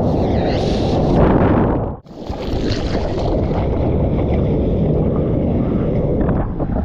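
Wind rumbling on the microphone over the noise of surf, loud and steady. It drops out sharply for an instant about two seconds in, then carries on.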